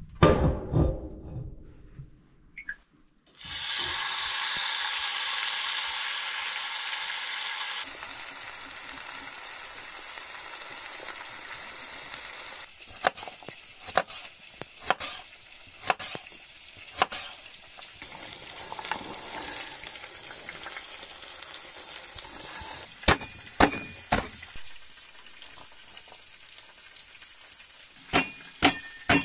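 A cast-iron pot set down on a wood stove with a heavy clunk, then food sizzling in the hot pot for a few seconds. Later comes a knife cutting carrots on a board, one sharp cut about every second. Near the end a hatchet blade chops on a cutting board several times, with a short metallic ring.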